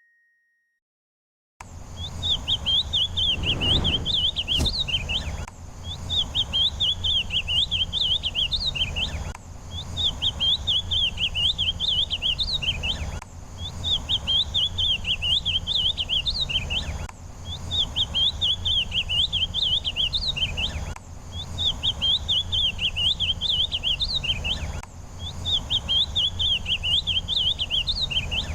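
A songbird singing a rapid, high warbling phrase, repeated about every four seconds, seven times, over a steady low rumble. It starts about a second and a half in.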